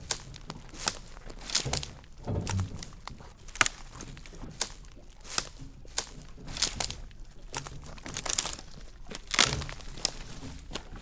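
Twigs and dry forest litter crunching and snapping in irregular sharp cracks, about one a second, with a few longer crackling stretches.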